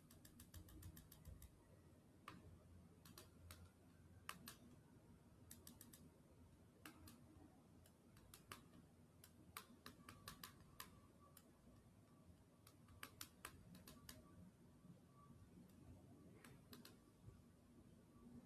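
Near silence with faint, sharp clicks, often in quick runs: fingers tapping on a smartphone's touchscreen.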